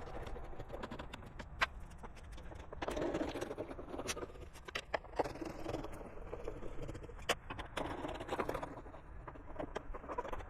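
Screws being worked out of a plastic airbox with a hand Phillips screwdriver: short stretches of scratchy scraping with scattered sharp clicks and taps of the driver, screws and plastic.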